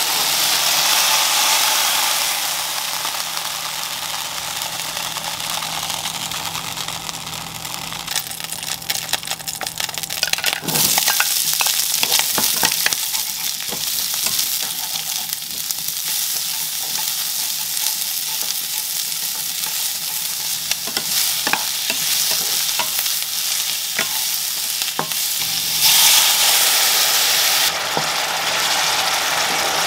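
Food sizzling in a hot frying pan: beef slices searing, then diced onions frying on high heat while a wooden spatula stirs and scrapes against the ceramic pan with repeated clicks. Near the end the hiss swells loudly as sauce goes into the hot pan and starts to simmer.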